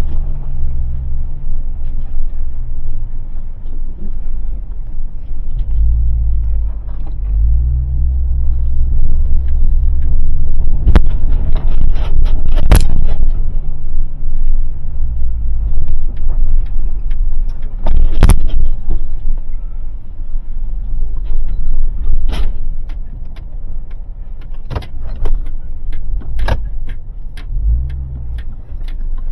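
A motor vehicle's engine running with a heavy low rumble whose drone rises and drops away at times, with several sharp metallic knocks or clanks at intervals.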